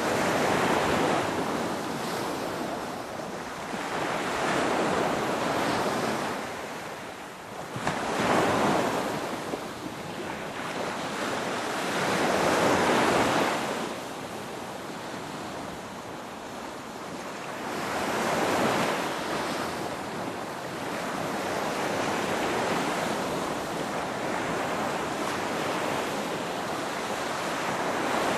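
Ocean waves breaking and washing on a shore, a steady hiss of surf that swells and ebbs every few seconds, with a few stronger breakers.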